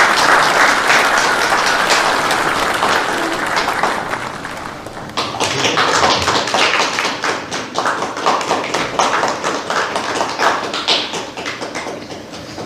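Audience applause, a dense patter of claps that dips briefly about five seconds in, picks up again and fades toward the end.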